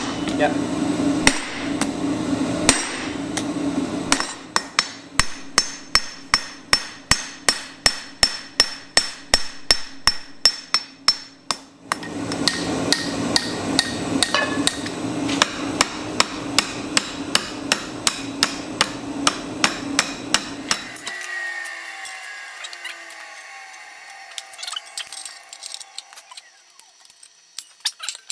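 Hand hammer forging a red-hot sheet-iron pan blank on a steel anvil, in fast even blows of about four a second over a steady low hum. About twenty seconds in, the hum stops and only a few light metal taps remain.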